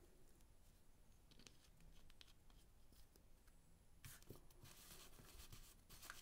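Near silence with faint handling noises: a few light clicks, then scratchy rubbing from about four seconds in, as grease is dabbed out of a small tube.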